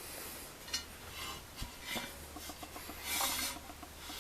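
Rubbing and scraping handling sounds in a few short strokes, the loudest about three seconds in.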